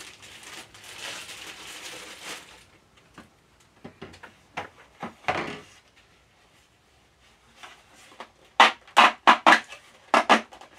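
Clear plastic packaging bag crinkling as toy parts are pulled out of it, then scattered light clicks and, near the end, a quick run of about six loud, sharp handling noises as the hard plastic toy pieces are handled.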